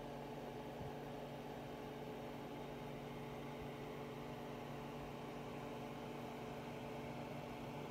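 Steady electrical hum with a faint even hiss: background noise with no notes played and no events.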